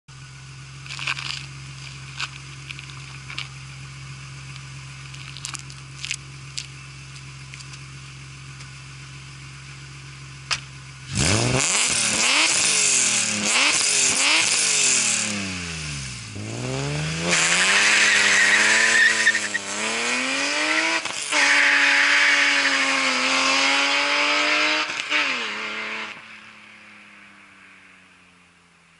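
BMW E36 328i's cammed straight-six with a 3-inch single exhaust and Magnaflow muffler, idling steadily with a few clicks and knocks. About eleven seconds in it is suddenly revved hard several times, then it accelerates away, its pitch climbing and dropping back at each gear change, and fades near the end.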